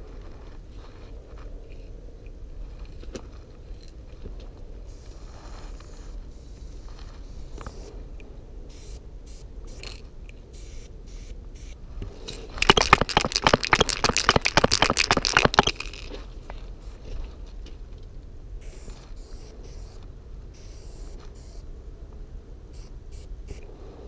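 Aerosol spray-paint can being shaken hard for about three seconds a little past the middle, its mixing ball rattling in quick, loud clatters. Around it are faint handling clicks and short spells of quiet spray hiss.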